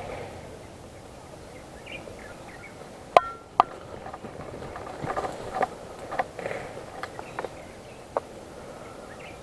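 Tall grass swishing and crackling against a person pushing through it on foot, with two sharp clicks a little after three seconds in, the first with a brief ring, and scattered snaps and rustles over the next few seconds.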